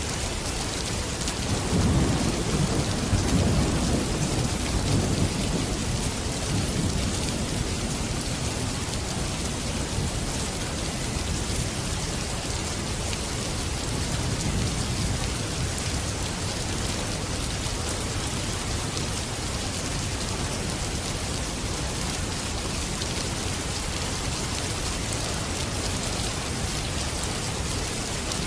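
Steady rain hissing, with a low rumble of thunder rolling through about two seconds in and fading out over the next several seconds.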